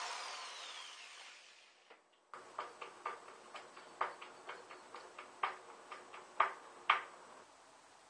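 Cordless drill motor winding down, its whine falling in pitch and fading over the first two seconds. After a short break, a string of light, irregular clicks and taps, about two a second, as a screw is turned by hand with a screwdriver.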